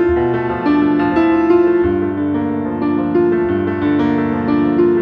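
Instrumental background music on piano, with held notes and chords changing about every second.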